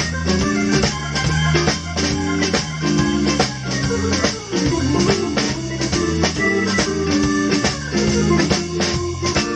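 Organ trio playing: organ chords in short repeated stabs lead over a steady drum beat, with guitar underneath.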